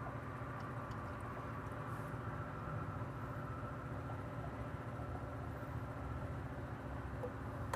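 Car engine idling steadily: a low, even drone with a faint higher hum above it.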